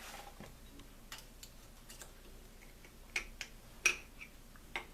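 Irregular sharp clicks and ticks of a screwdriver and a small coil spring being worked onto a locker pin inside an Aussie Locker's cam gear. The clicks are faint at first and louder in the second half, the loudest about four seconds in.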